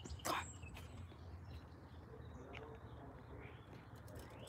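Faint background with distant birds chirping, one rising chirp near the end. A brief scuffing noise comes just after the start.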